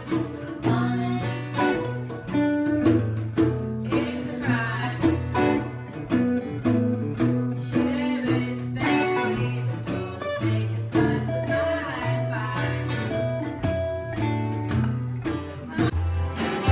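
Live acoustic jam: strummed and plucked acoustic guitars with a hand drum tapping out a steady beat.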